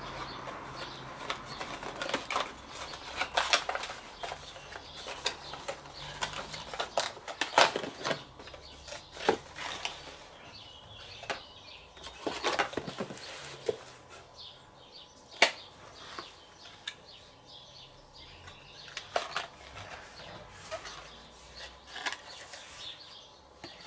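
Paper leaflets and cardboard packaging being handled by hand while a boxed grill thermometer is unpacked: irregular rustling, flapping and light clicks and taps.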